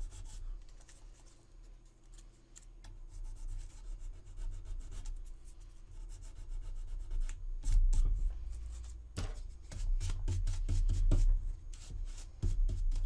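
Folded sandpaper rubbing and scraping in short strokes over the seam of a resin model kit, smoothing the joint between two parts. The strokes come faster and louder in the second half, over a low rumble.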